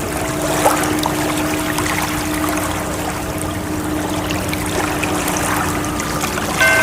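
Steady rushing, splashing water under soft held musical tones; a new, higher set of held tones comes in near the end.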